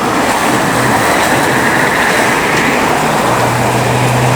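City street traffic: a steady rush of passing vehicles, with a low engine hum coming in about three seconds in.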